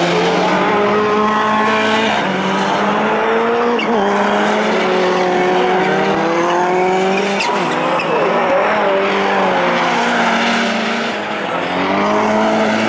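Rallycross Supercar engines at racing speed. Their notes climb repeatedly and drop back as the drivers accelerate and change gear, with a few sharp pops along the way.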